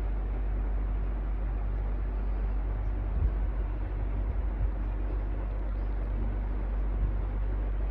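Electric fan running steadily: an even rushing noise over a deep, constant hum.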